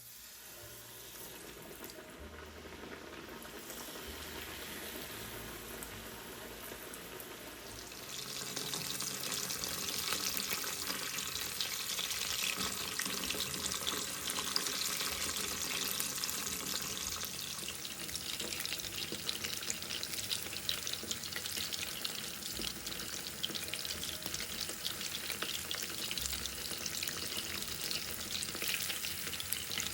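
Flour-coated king oyster mushroom pieces frying in hot oil: a steady sizzle with fine crackling that grows louder about eight seconds in.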